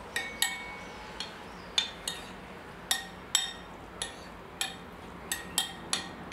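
A utensil clinking against a bowl while mixing chopped salmon tartare: about a dozen irregular sharp clinks, roughly two a second, each with a short ring.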